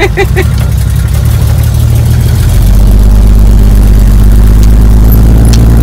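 A 1962 Chevy II Nova's engine running with a steady low drone. About two and a half seconds in it grows louder and fuller, then holds there.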